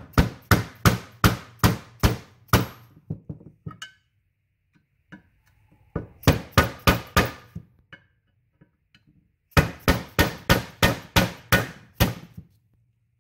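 Hammer striking the end of a screwdriver held against an old crankshaft seal in a Honda K20's aluminium timing cover, driving the brittle seal out. Three runs of sharp, quick taps, about three a second, with short pauses between the runs.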